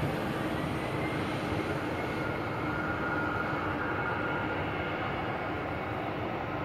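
Twin-engine jet airliner taxiing at low power: a steady rumble of its turbofan engines with a faint whine, slowly fading as it moves away.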